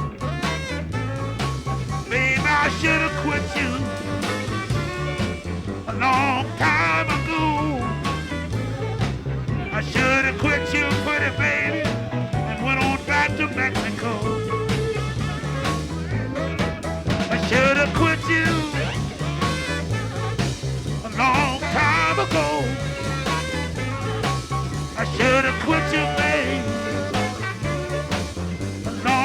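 Live blues band playing an instrumental break in a slow blues: a steady bass and drum groove under a lead instrument bending its notes.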